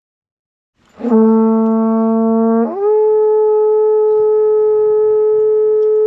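Horagai, a Japanese conch-shell trumpet, blown. It comes in about a second in on a low note, jumps up about an octave after a second and a half, and holds the higher note steadily.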